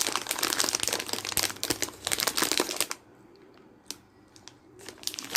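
Close-up crisp crunching and crackling of dried pineapple chips being chewed, in two spells with a short pause between them.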